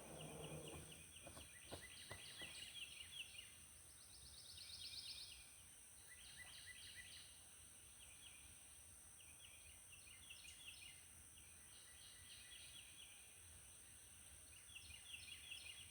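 Faint outdoor wildlife: short trills of rapid high chirps repeating every second or two, over a steady high-pitched insect drone, with a few faint clicks near the start.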